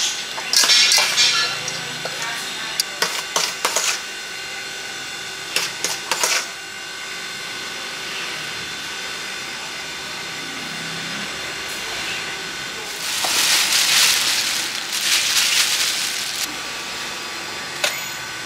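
Pickled fruit being tossed and stirred by a gloved hand in a plastic-lined basket, making irregular bursts of rustling and rattling, with a longer stretch of rustling near the end. A steady faint hum runs underneath.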